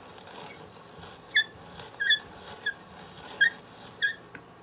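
Hand brace turning a Forstner bit through a wooden board, squeaking in short high chirps about twice a second at an uneven pace, over a faint rasp of the bit cutting.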